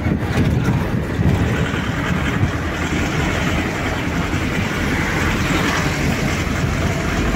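A car being driven, with a steady low engine-and-road rumble.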